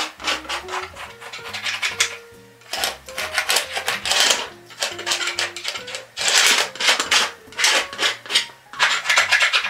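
A painting tool scraping and rubbing acrylic paint across a textured canvas in a run of short, rasping strokes with brief pauses between them. Soft background music plays underneath.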